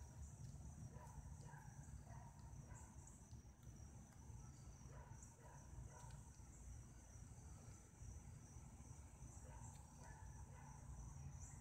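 Faint, steady high-pitched chorus of crickets over a low rumble.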